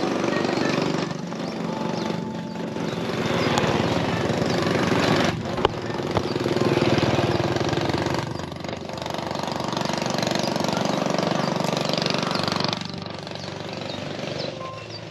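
A small engine running close by, its level swelling and easing, with a sharp knock about five and a half seconds in. It drops away near the end.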